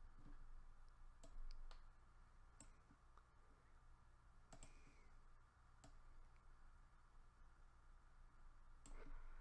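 Computer mouse button clicking: about six single, sharp clicks at uneven intervals, quiet against a faint steady hum.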